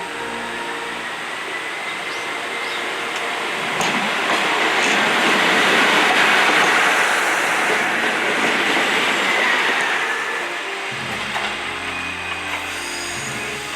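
A diesel train on the JR Tadami Line passing by. Its rushing noise swells to a peak about halfway through, then fades away.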